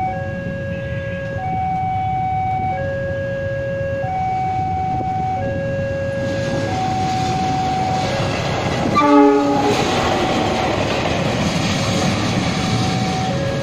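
Level crossing warning alarm sounding a two-tone signal, the high and low tones alternating about every 1.3 seconds, warning of an approaching train. A diesel locomotive's running noise builds from about six seconds in, and it gives one short horn blast about nine seconds in.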